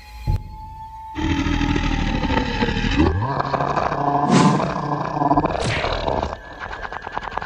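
Cartoon horror sound effect of a ghost growling and roaring, lasting about five seconds from just over a second in, with the pitch sweeping up and down. A short, sharp hit sounds just before it.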